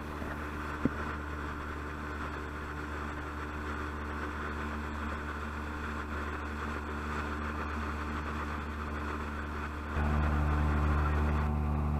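Speedboat engine running steadily at low speed, with a single sharp click about a second in. About ten seconds in the engine gets louder as the boat speeds up.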